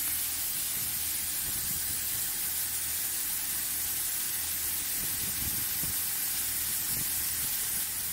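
CNC machining center milling an aluminium plate with a small end mill: a steady hiss over a low machine hum.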